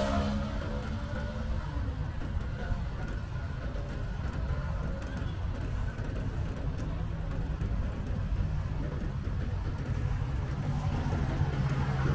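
Road traffic noise: a steady low rumble, with a vehicle's engine hum coming in about two-thirds of the way through.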